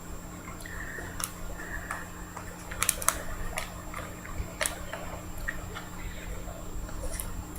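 Handling of trading cards and plastic card holders: soft rustling with scattered light clicks and taps, the sharpest a cluster about three seconds in.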